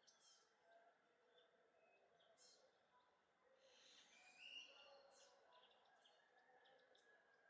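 Faint birds chirping and calling in short, high notes over quiet outdoor hiss, a little louder about four seconds in.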